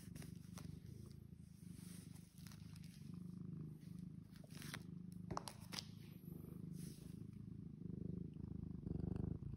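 Long-haired pet cat purring steadily, a low rumble that swells and eases about once a second. A couple of faint clicks a little past the middle.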